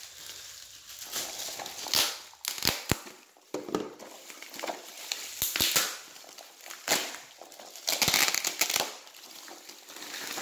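Plastic bubble-wrap packaging being handled and pulled open: irregular crinkling and crackling with several sharp snaps.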